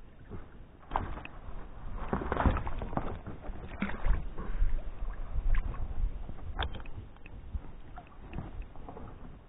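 Irregular splashing and sloshing of water with knocks and rustles against an inflatable boat as a wire-ringed fishing keepnet is lifted and handled at the boat's side.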